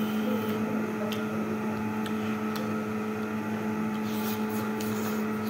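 A steady room hum with a low tone and a higher one held level, likely from a household appliance. Over it come a few faint clicks from fruit being eaten and handled.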